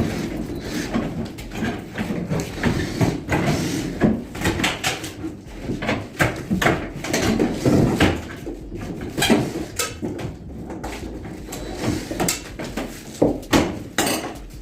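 Irregular knocks, clicks and clattering of hand work, many short sharp hits at uneven intervals, with no steady machine sound.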